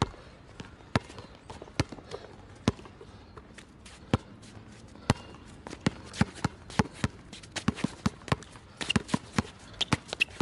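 Basketball dribbled on an outdoor court: single bounces about once a second at first, then quicker and more frequent from about six seconds in as the ball-handler works against his defender, with a few short squeaks near the end.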